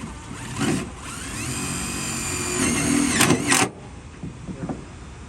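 Power drill driving a self-tapping screw: the motor whines up to speed, runs steadily with dips in pitch as it bites, gets loudest just before it cuts off suddenly about three and a half seconds in.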